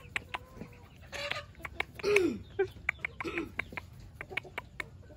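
Chickens clucking: four short calls, each falling in pitch, the loudest about two seconds in, among many sharp little clicks.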